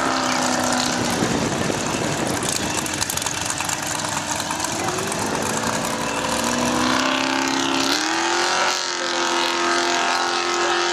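Formula Offroad buggy's engine at high revs climbing a steep sand hill. The pitch dips about a second in, then rises in two steps, about five and eight seconds in, and holds high near the end.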